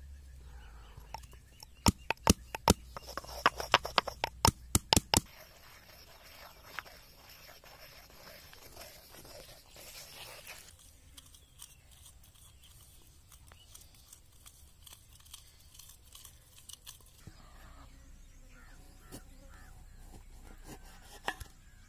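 Stone pestle pounding chopped herbs and spices in a granite mortar: about a dozen sharp stone-on-stone knocks over three seconds, a couple of seconds in, then softer crushing and grinding that fades about halfway through.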